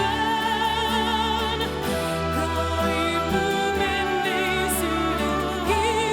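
Music: long held melodic notes with a wide vibrato over sustained low accompaniment, changing notes every second or so.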